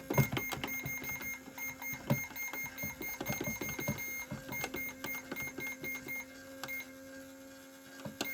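Battery-powered toy microwave running: a steady low motor hum with a faint high electronic tone switching on and off, and rapid irregular clicking from the mechanism. The clicking thins out for about a second near the end.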